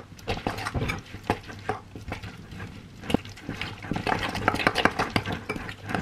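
A metal utensil stirring raw chicken pieces coated in cornflour and seasoning in a glass mixing bowl, with quick irregular clicks and scrapes against the glass.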